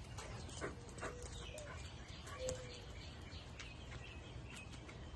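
A dog giving two short, faint whines, about a second in and again about two and a half seconds in, among scattered light clicks.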